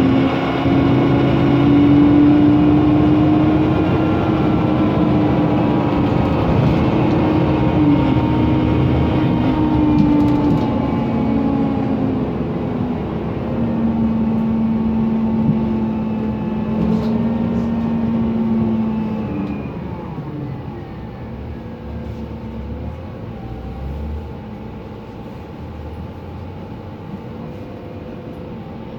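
Mercedes-Benz Conecto NGT city bus's OM 936G natural-gas engine and noisy cooling fan running, with steady whining tones that slowly shift in pitch. The sound drops noticeably about two thirds of the way through.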